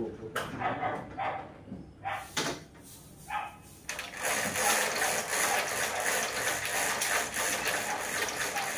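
Zebra roller blind being raised by its pull chain: a few short rattles, then a steady whirring rattle from about four seconds in that lasts several seconds as the blind rolls up.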